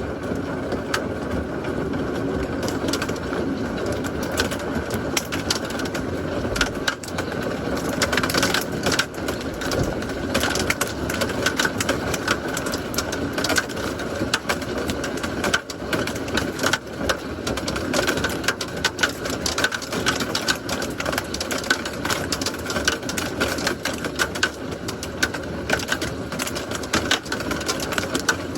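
Rain falling steadily, with many close raindrops ticking sharply on a hard surface.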